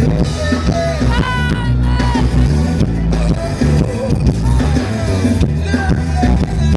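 Live band music with a steady bass and beat, with a voice singing or calling out over it.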